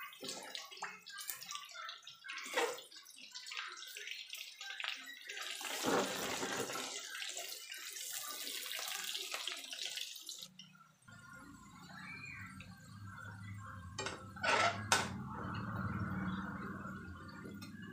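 Sliced potatoes frying in hot oil in a pan, sizzling and crackling, loudest for a few seconds in the middle, with a metal spatula scraping and knocking against the pan as the slices are turned. A low steady hum sets in about eleven seconds in.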